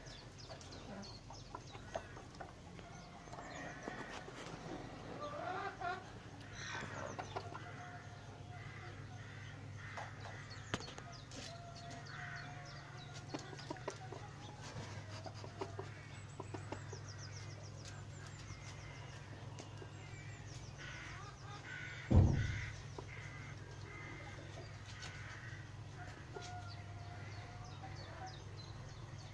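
Hens clucking softly and making low, drawn-out calls, over a steady low hum. One loud thump comes about two-thirds of the way through.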